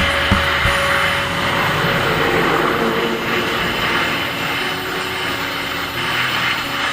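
Aluminium welding arc: a steady hiss over a low buzz, held without a break.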